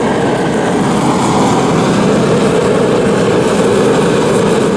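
Remington 60,000-BTU forced-air propane heater running: the steady rush of its fan and burner, a tad bit noisy, with a low hum that grows stronger about a second and a half in.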